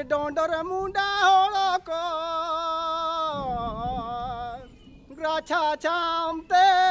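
A voice singing a song in long, wavering held notes, with a short break about five seconds in.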